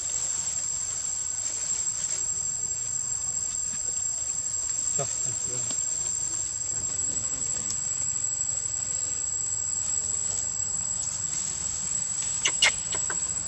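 A steady, high-pitched insect chorus shrilling without a break. A few short, sharp sounds stand out about twelve and a half seconds in.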